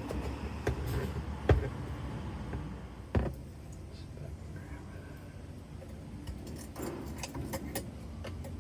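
Sharp metal clicks and knocks as parts are worked loose inside an Espar heater's burner to get at the fuel atomizer screen, the two loudest about one and a half and three seconds in, over a steady low hum.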